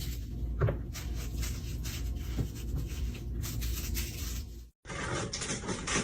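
Rustling and scraping with scattered light knocks, which cuts off suddenly about three-quarters of the way through and is followed by a different rustling stretch.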